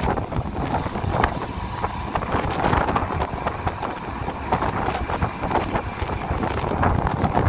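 Wind buffeting the microphone in uneven gusts, over the rush of sea water breaking along the hull of a tanker under way.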